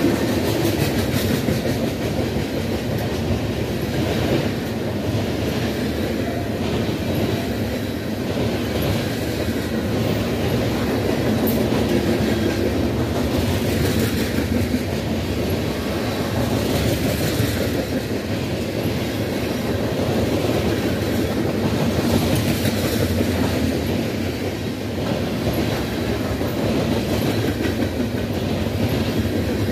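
Freight cars rolling past: a steady rumble of steel wheels on the rails, with a repeated clickety-clack as the wheels cross rail joints.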